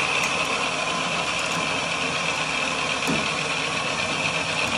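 Small electric ATV winch running steadily under load, reeling steel cable in through pulleys to lift a motorcycle lift bed, with a constant high whine from its motor and gears.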